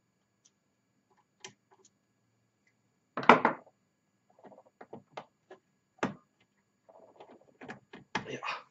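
Scattered clicks and knocks of small parts being handled while a synthesizer keyboard is put back together. A louder clatter comes about three seconds in and a single knock around six seconds. Near the end there is a quicker run of rattling and clicking.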